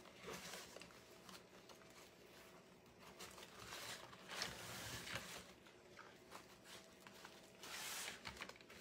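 Faint rustling of ribbon being twisted and pulled off its spool into bow loops, in three short spells: just after the start, around the middle, and near the end.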